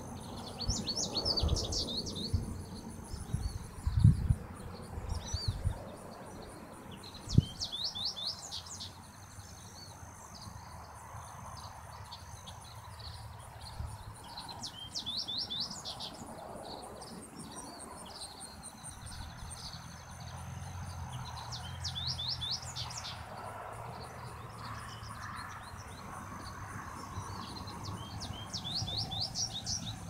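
A songbird in a meadow singing the same high phrase over and over, about every seven seconds: a held high note followed by a quick run of falling notes. A few low thumps of breeze on the microphone come in the first eight seconds, and a faint low rumble runs through the second half.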